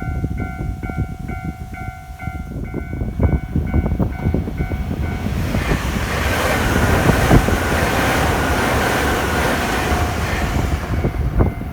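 Japanese level-crossing alarm ringing in steady repeated dings, about two a second. From about five seconds in, a Nankai Kōya Line train passes over the crossing with a loud rush of wheel and rail noise that covers the bell, easing off near the end.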